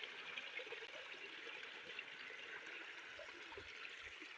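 Steady, faint rush of water from a waterfall.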